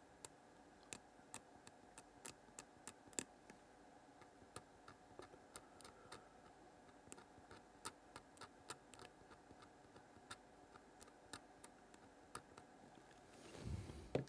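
Faint, irregular sharp clicks and ticks, a few a second, from a fine tool scratching at the solder mask over the copper traces of a small circuit board. A brief, louder rustling noise comes near the end.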